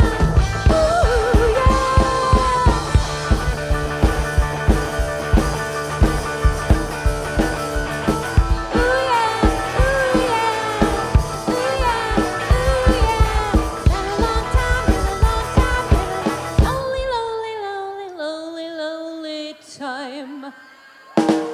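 Live rock band playing with a steady drum beat, bass, guitar and singing. About three-quarters of the way through the drums and bass drop out, leaving a single melodic line sliding down in pitch, and the drums come back in just before the end.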